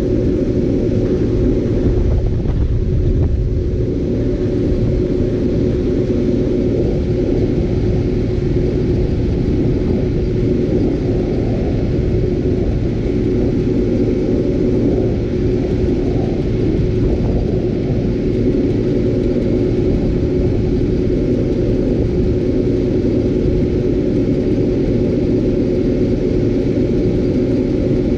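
Bizon ZO-58 Rekord combine harvester running steadily: a deep, even engine rumble with a steady whine.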